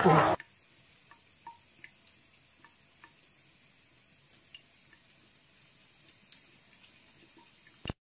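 Water dripping from a bathroom sink faucet: faint, irregular drips about every half second into the basin, one a little louder about six seconds in. It opens with a fraction of a second of loud voice that cuts off and ends with a short sharp click.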